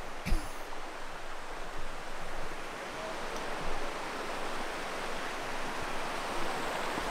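Steady rushing of a creek's flowing water, with one brief thump just after the start.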